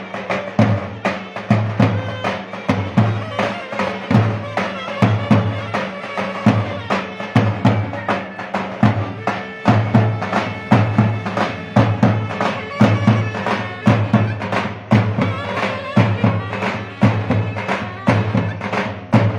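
Mehter band of zurnas and davul drums playing a traditional tune: a shrill, reedy double-reed melody over a steady, regular drum beat.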